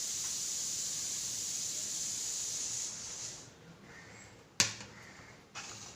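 A steady high hiss for about three seconds that then stops, followed by one sharp click about a second later, and a softer knock near the end.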